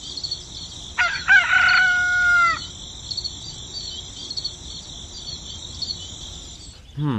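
A rooster crowing once, about a second in, a single drawn-out call lasting about a second and a half, over a steady high-pitched chorus of chirping insects.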